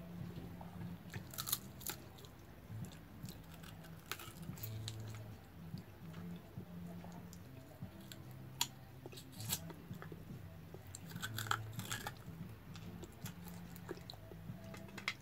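Close-up chewing and crunching of crispy fried fish eaten by hand, with scattered sharp crunches from bites.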